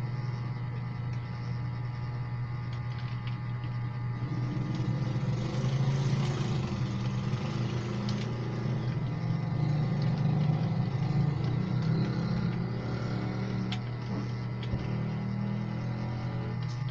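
Steady low hum that swells louder and rougher through the middle, with a few scattered clicks.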